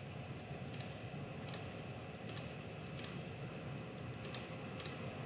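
Clicks of a computer mouse and keyboard: about ten short, sharp clicks spread unevenly, several coming in quick pairs, over faint room noise.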